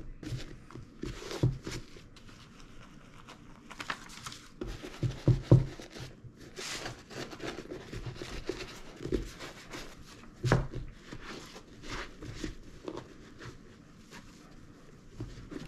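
Dauber brush scrubbing saddle-soap lather into the leather of a boot in short, scratchy strokes, with scattered knocks as the boot is handled. Near the end a cloth rubs over the wet leather.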